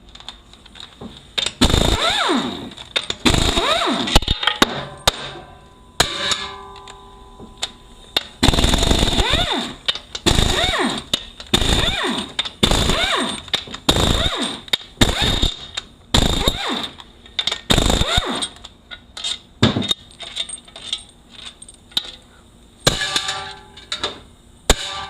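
Power impact wrench spinning bolts out of an automatic transmission case in about a dozen short bursts, each with a whine that rises and falls.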